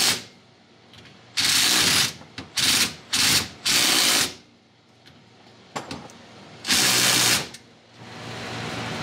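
Handheld power tool run in five short bursts of about half a second to a second each, with pauses between, while driveshaft and carrier-bearing bolts go back in.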